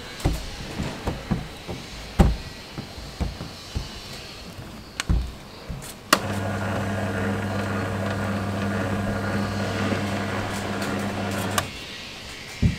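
Scattered knocks of hands and dough on a steel counter. About six seconds in, an electric dough sheeter's motor switches on and hums steadily for about five and a half seconds, then stops.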